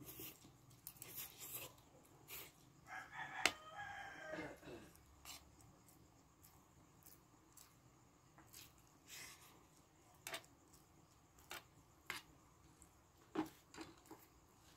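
Quiet eating sounds: a spoon and fork clinking and tapping against a plate now and then. About three seconds in, a rooster crows once for around two seconds.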